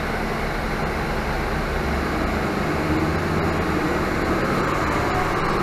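Cabin noise inside a 2018 Nova Bus LFS diesel transit bus under way: a steady diesel engine drone mixed with road noise.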